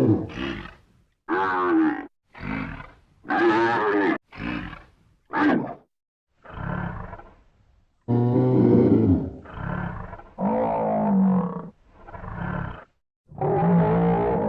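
Buffalo bellowing and grunting: about a dozen separate calls, each up to a second and a half long, some sliding in pitch, each cut off sharply into silence as edited clips.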